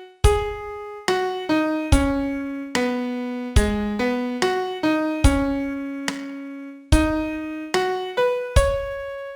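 Piano playing a slow vocal melody one note at a time, each note struck and left to fade, with no accompaniment or voice.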